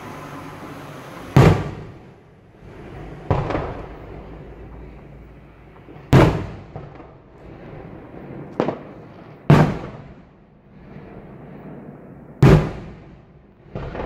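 Aerial fireworks display: about six loud shell bursts one to three seconds apart, each bang followed by a rolling, fading echo.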